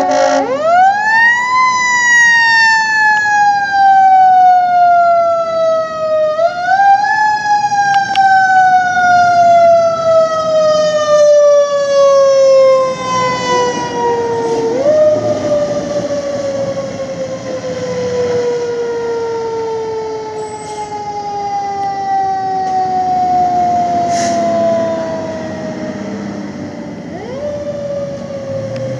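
Fire truck's mechanical siren spinning up sharply at the start, then slowly winding down in pitch. It is kicked back up briefly about six seconds in, again about fifteen seconds in and once more near the end, each time coasting down again, over the rumble of the passing truck.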